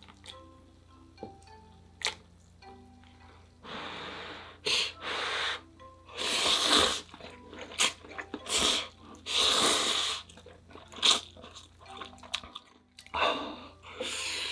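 A person slurping spicy ramyeon noodles in a series of loud wet slurps, with chewing and small mouth clicks between them, starting about four seconds in. Soft background music underneath.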